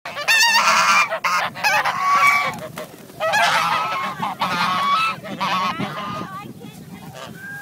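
Geese honking loudly, several overlapping wavering calls in two bouts, dying down near the end.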